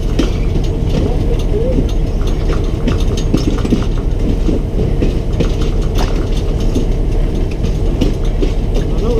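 Passenger excursion train rolling along the track: a steady, loud rumble of the cars with scattered clicks and clatter from the wheels on the rails.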